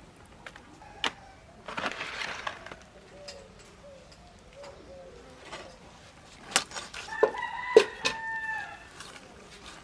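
A rooster crowing once, a drawn-out call that holds steady and drops at the end, about seven seconds in. Around it come sharp knocks and clicks of raw chicken being cut against a boti, a curved blade fixed upright in a wooden base.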